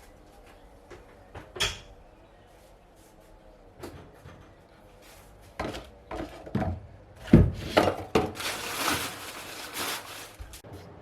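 Car parts being handled and knocked together: scattered knocks and clicks, the loudest about seven seconds in, followed by about two seconds of scraping rustle.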